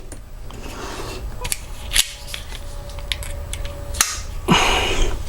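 Small sharp metallic clicks of a freshly cut key being worked in a Schlage lock cylinder to impression it, the pins pressing into the cuts to leave marks. A few separate clicks, the loudest two about two seconds apart.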